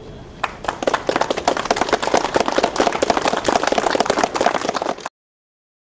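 A small group clapping, starting about half a second in and cut off abruptly about five seconds in.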